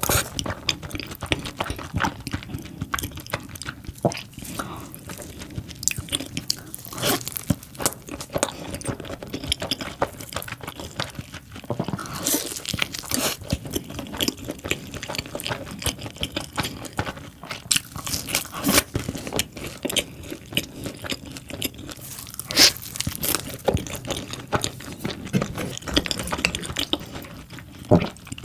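Close-miked eating: irregular crunchy bites and chewing of mac and cheese pizza, with no talking.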